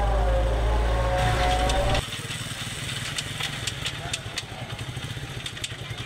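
Small motorcycle engine running with the bike on its stand in gear, driving the rear wheel on its freshly repaired hub. A voice is heard over it for the first two seconds, then the sound drops abruptly to the engine's steady fast pulse with light ticking.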